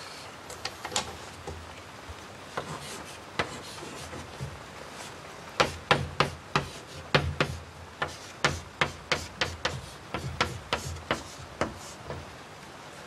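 Chalk on a blackboard as numbers are written: a run of sharp taps and short scratches, sparse at first, then quick and irregular from about five seconds in.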